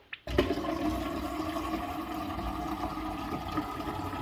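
Filtered water being poured steadily into a coffee maker's removable water tank to fill it. The pouring starts about a third of a second in, just after a small click.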